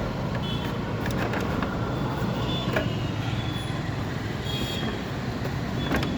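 Steady motor-vehicle rumble with scattered sharp clicks and clinks.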